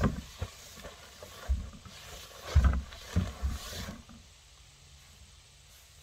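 Hollow plastic hull of a Beavertail Final Attack layout duck boat knocking and thumping as it is handled and shifted, with a rustle of plastic sheeting; the loudest thump comes about two and a half seconds in, and the handling noise dies away about four seconds in.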